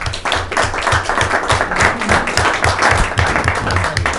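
Small audience applauding, many hands clapping at once.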